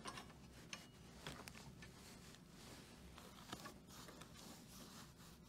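Near silence with a few faint, scattered clicks as the arbor nut and compression washer are fitted by hand onto a SawStop table saw's blade arbor.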